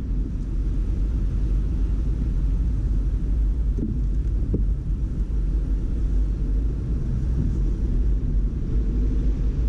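Steady low rumble of a car driving on a wet, flooded road, heard from inside the cabin: engine and tyre noise.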